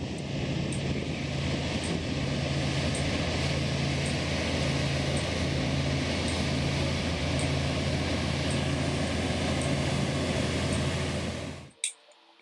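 Steady diesel engine drone of heavy road-train trucks and a road grader crawling past, under a broad noise of tyres and air. It cuts off suddenly near the end.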